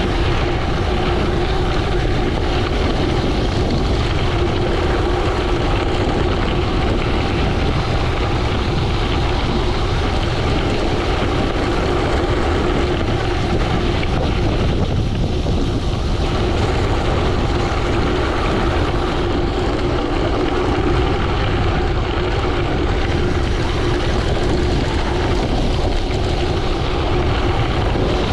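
Steady, loud wind rush buffeting the microphone of a camera on a gravel bike descending fast downhill, with a constant low rumble and a steady hum underneath.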